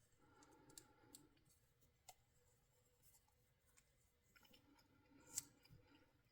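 Near silence with faint clicks and light rustling from handling electrical tape and the cord being wrapped, with one sharper click about five and a half seconds in.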